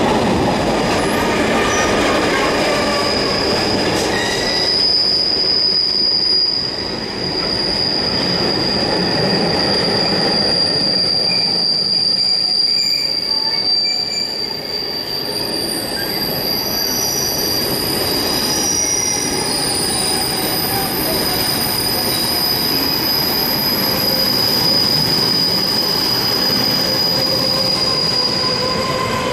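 Container freight train's wagons rolling past with a steady rumble of wheels on rail. From about four seconds in, a sustained high-pitched wheel squeal rings out over it and holds almost to the end.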